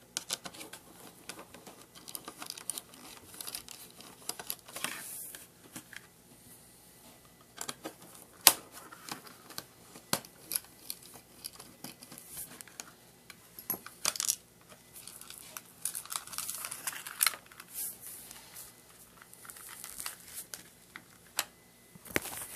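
Hands working a small plastic calculator case apart: scattered clicks, taps and scraping of plastic, with one sharp click about eight and a half seconds in.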